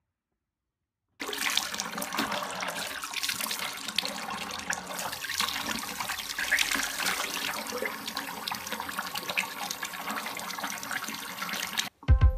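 Water running steadily in a bathroom. It starts abruptly about a second in and stops near the end.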